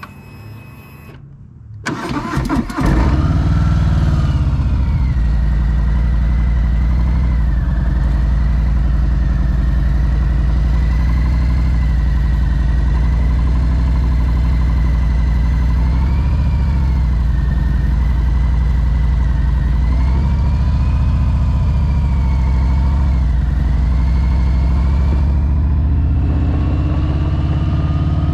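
Harley-Davidson V-twin motorcycle engine cranked over, catching about two seconds in, then running steadily with a loud, low pulsing note.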